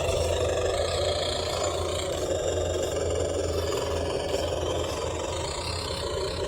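Simulated diesel engine sound from an RC engine sound module, played through a small speaker on the RC truck and running steadily without revving.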